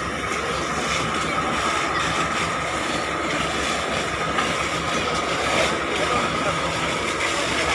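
Steady rushing roar of a burning bus being doused by a fire-hose water jet, with a faint steady whine running through it.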